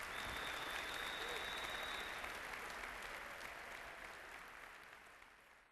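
Audience applauding, dense clapping that fades away toward the end.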